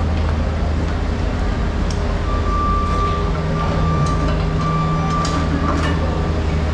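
Steady low rumble of running machinery, with a thin high whine from about two seconds in until past five seconds, and a few sharp clicks.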